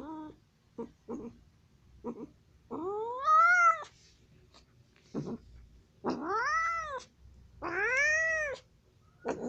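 Domestic cat meowing over and over: a few short mews, then three long drawn-out meows. The first long meow rises in pitch and is the loudest, about three seconds in; the other two rise and fall.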